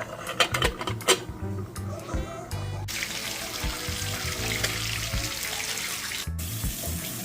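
Background music, joined for a few seconds in the middle by water running from a tap, which cuts off abruptly.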